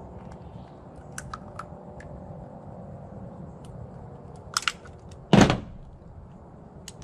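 Small clicks and taps of plastic and metal parts of an old push-button telephone being handled and pried apart by hand, with one loud thunk about five and a half seconds in.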